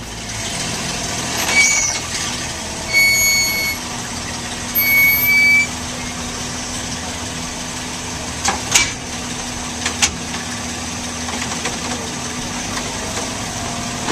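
A vehicle engine running steadily with a low hum. Three long, high beeping tones sound in the first six seconds, and there are a few sharp clicks or knocks about eight to ten seconds in.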